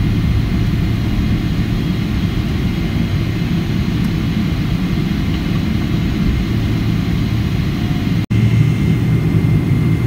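Boeing 777-300ER's GE90-115B turbofan engines heard from inside the cabin as a steady low rumble while the aircraft taxis. The sound cuts out for an instant just over eight seconds in, then resumes with a steadier low hum.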